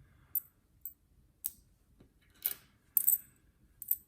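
Silver Barber coins clinking against one another as they are handled: about six light, bright clinks at uneven intervals.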